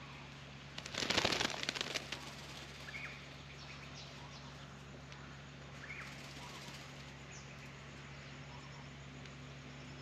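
Australian magpie beating its wings in a birdbath while bathing: a loud, rapid burst of splashing and flapping about a second in, lasting about a second.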